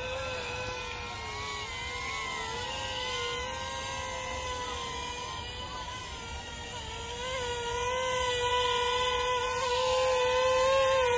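Aerobat HC702 mini quadcopter hovering, its four small motors and propellers giving a steady high whine whose pitch wavers slightly as it holds position; it grows louder in the last few seconds as the drone comes close.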